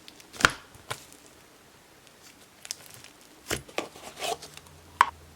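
Inflatable butter slime being played with by hand, giving a handful of sharp bubble pops: a loud one about half a second in, a group around three and a half to four and a half seconds, and another loud one near the end.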